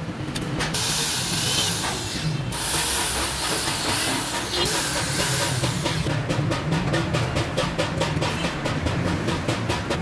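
Steady low rumble of road traffic. Over it come two long bursts of loud hissing in the first half, then a fast, even run of clicks, about five or six a second.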